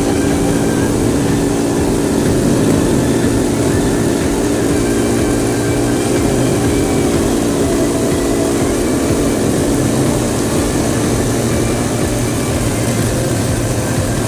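Cotton candy machine running: its spinning head gives a steady, unchanging hum.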